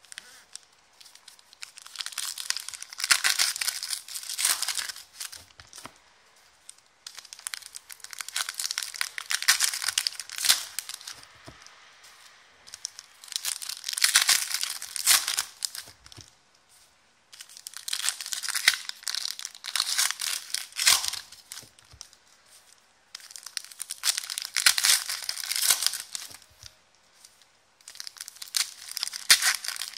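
Foil trading-card packs being torn open and crinkled by hand, one after another. The sound comes in about six bouts of two to four seconds each, with short quiet gaps between them.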